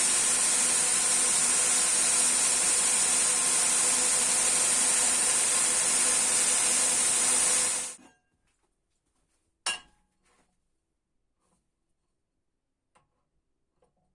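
Homemade 50x1600 mm belt grinder running steadily, its belt driven at about 18–19 m/s by a 1.8 kW, 2850 rpm motor on a home-made 125 mm drive wheel. It is a loud, even, high-pitched hiss with a faint hum under it, and it stops abruptly about eight seconds in. A single sharp click comes near ten seconds.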